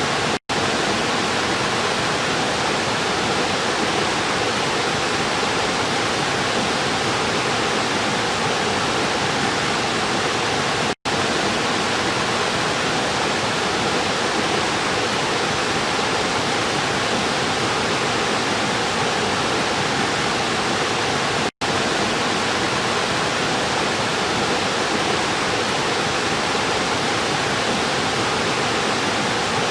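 River water rushing steadily, an even hiss with no changes in level. It drops out to silence for a split second three times, about ten seconds apart.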